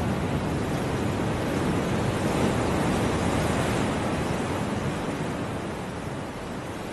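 Amplified ocean surf: a steady rushing noise of breaking waves that swells around the middle and eases off near the end.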